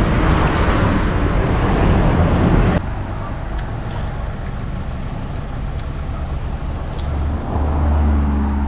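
Road traffic: motor vehicles running past with a steady low engine rumble. The sound drops abruptly about three seconds in, and a vehicle's engine swells near the end.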